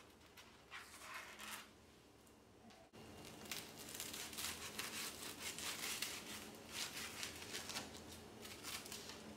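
A kitchen knife sawing through a butter-toasted sandwich on a wooden chopping board, the crisp crust crunching under the blade in quick, irregular strokes. There are a few scrapes at first, then steady crunching from about three seconds in.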